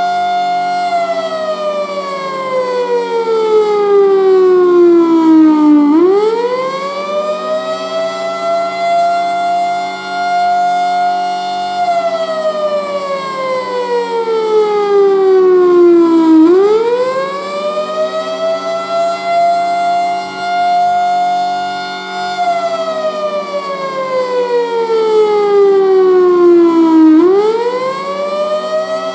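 Federal Signal Thunderbolt 1000 outdoor warning siren with blower, horn fixed (not rotating), sounding the attack signal. Its tone holds steady for a few seconds, slides slowly down for about five seconds, then sweeps quickly back up, about every ten seconds, three times. A steady low hum runs beneath it.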